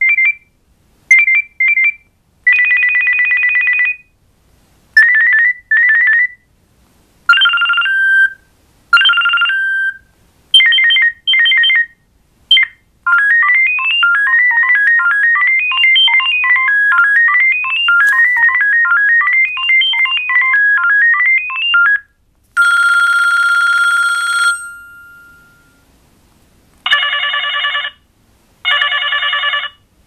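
Kyocera DuraXT flip phone's speaker playing its preloaded ringtones one after another as each is previewed. First come short electronic beeps and chirps, then a fast run of beeps stepping up and down in pitch, a single held tone, and near the end two buzzing ring bursts.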